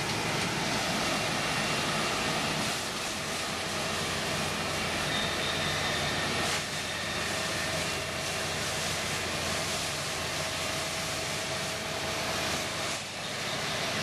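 New Holland CR920 combine harvester running close by while cutting wheat: a steady, loud drone of its engine and threshing machinery. The noise shifts suddenly about six and a half seconds in.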